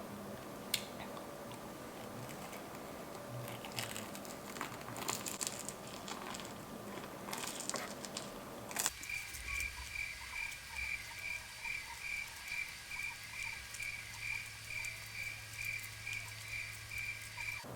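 Quiet close-up chewing of a tough, chewy cheese corn dog. About halfway through, the sound cuts abruptly to a steady, rhythmic chirping about twice a second over a low hum, like an added cricket sound effect for the long silence.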